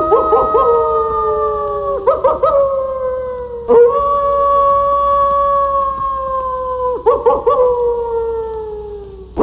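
Several wolves howling together. Their long, overlapping howls sit at different pitches and slide slowly downward. Short wavering breaks come about two seconds in, near four seconds, and again around seven seconds.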